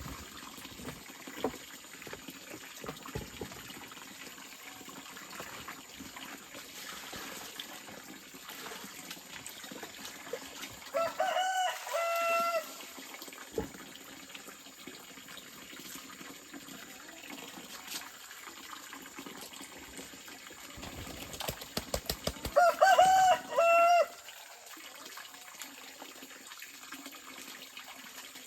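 A rooster crowing twice, about ten seconds apart, each crow a few held notes, over a steady background hiss with scattered small clicks.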